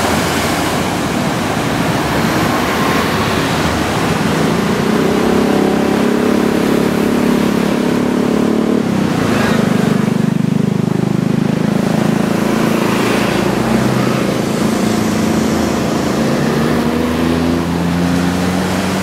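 Big surf breaking continuously, mixed with road traffic passing close by: vehicle engines come and go, the loudest passing about halfway through.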